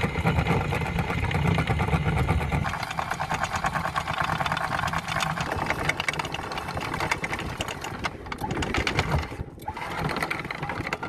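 Powered anchor windlass running on a sailboat's bow, hauling the anchor chain aboard over its gypsy with a fast rhythmic clatter of links over a motor hum. The windlass is working after being troubleshot and fixed. It stops briefly about nine seconds in, then runs again.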